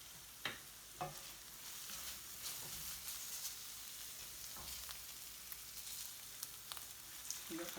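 Diced onions and onion paste sizzling as they fry in the pan, with a cooking utensil stirring and knocking against the pan a few times.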